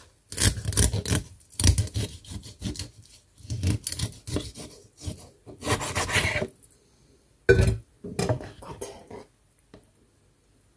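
Kitchen knife cutting a masu salmon into fillets on a wooden cutting board: repeated rasping, scraping strokes as the blade works along the fish for about seven seconds, then a few short knocks on the board.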